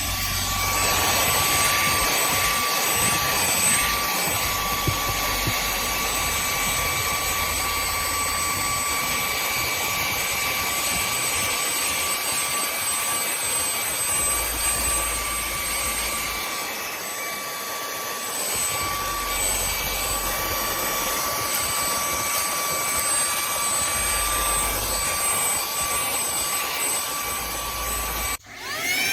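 Cordless handheld vacuum cleaner running steadily: a high motor whine over the hiss of rushing air, cutting out abruptly near the end.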